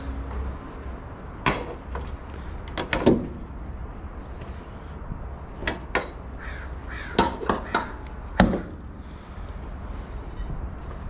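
A scattered string of sharp metal clanks and knocks, a dozen or so, as hand tools and ratchet-strap hardware are handled and dropped in a metal toolbox, over a low steady rumble.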